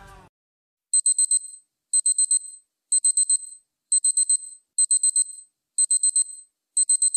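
Electronic alarm-clock beeping: seven bursts of four quick high beeps, about one burst a second, starting about a second in.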